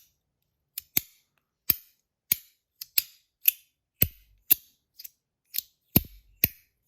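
Compoform V1.1 Mini fidget slider's metal plates being slid and snapping together, a run of sharp clacks at about two a second, unevenly spaced.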